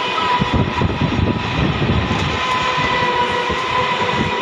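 Express train running on the rails: a loud, steady rumble and rush with rapid wheel clatter. A faint steady tone runs through it.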